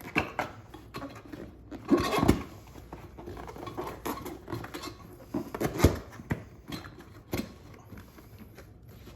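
A rubber tire and inner tube being worked by hand onto a rim: scattered rubbing, scuffing and knocks, with louder thumps about two seconds in and again near six seconds.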